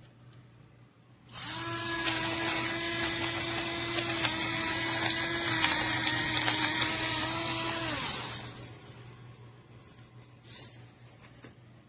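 Electric salt and pepper grinder's small motor whirring steadily for about six seconds, with a crackle of grains being ground, then winding down.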